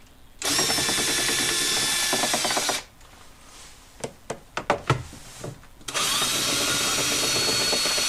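Handheld power tool with a 6 mm socket spinning in two runs of about two and a half seconds each, backing out the door panel's bottom bolts, with a few clicks and knocks between the runs.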